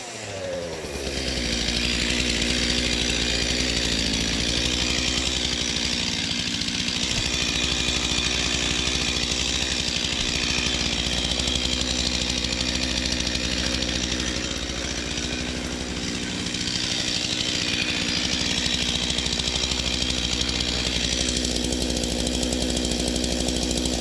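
Stihl MS 231 two-stroke petrol chainsaw running at high revs while clearing a fallen tree, building up over the first couple of seconds and then running steadily, with a brief dip about two-thirds of the way through.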